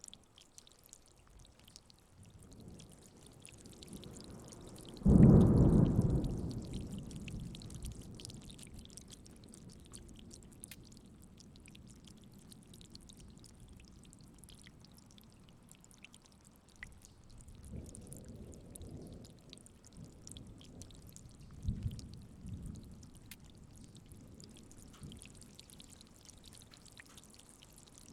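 Steady rain with thunder: a loud, sudden clap about five seconds in that rolls away over a few seconds, then two fainter rumbles later on.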